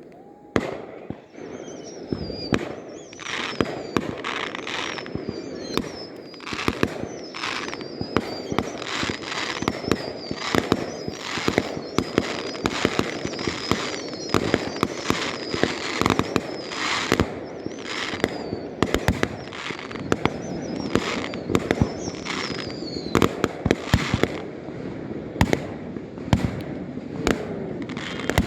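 Fireworks going off in a rapid, continuous barrage of bangs and crackles, several a second, with high whistling shells gliding up and down in pitch through most of it.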